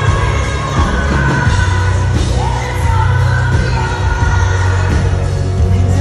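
Live arena concert sound of a country-pop song: a woman's lead vocal over a full band with very heavy bass, heard with the hall's echo and occasional crowd yells.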